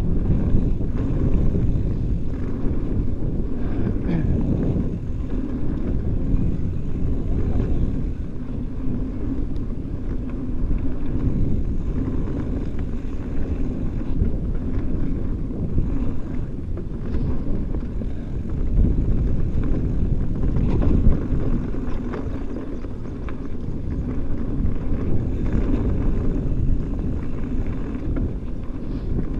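Mountain bike riding fast over dirt singletrack: steady wind rush on the camera microphone and tyre rumble, with scattered knocks and rattles from the bike going over bumps.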